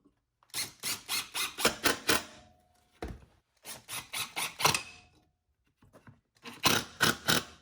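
Three quick runs of sharp clicks, about five a second, from hand work on a metal hammer rack in a small shop.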